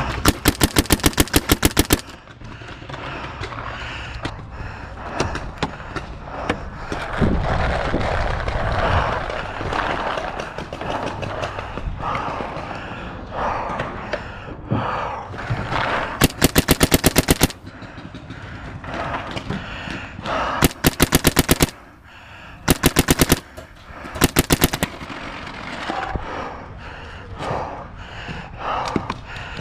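Paintball marker, an EMF100, firing rapid strings of shots at about ten a second. There are five loud bursts: a two-second string at the start, one about 16 s in, and three short strings between about 20 and 25 s in. Between the strings there is lower rustling and scattered pops.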